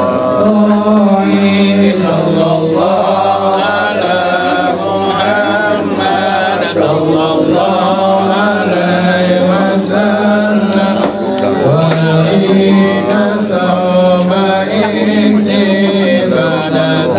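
Group of voices chanting together in unison, with long held notes.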